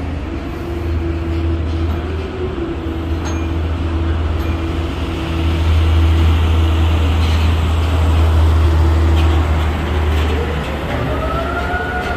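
Steady low drone of a docked cargo ship's machinery, with a constant hum tone above it, growing louder about halfway through. Near the end a second tone rises and falls back in pitch over a few seconds.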